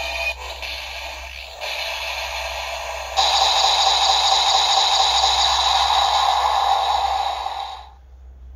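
Bandai DX Ark Driver toy transformation belt playing a harsh, static-like electronic sound effect that steps up in loudness twice and then cuts off abruptly near the end.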